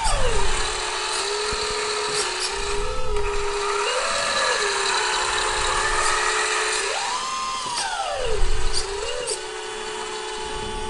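Electric hydraulic pump of an RC Volvo L250G wheel loader model whining steadily as its hydraulics are worked. The whine rises in pitch and falls back several times: briefly about four seconds in, for longer about seven seconds in, and briefly again near the nine-second mark.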